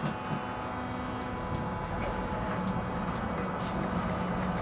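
Inside a moving tram: steady running rumble and hum of the car on the rails, with scattered light clicks and rattles from the car body.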